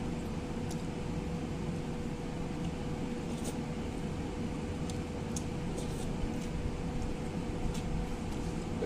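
Steady mechanical hum with a thin steady tone in it, over which come faint, scattered clicks and smacks of someone eating rice with their fingers.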